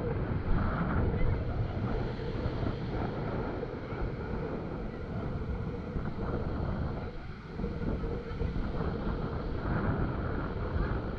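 Wind rumbling on the camera microphone over ocean surf breaking and washing up the beach, dipping briefly about seven seconds in.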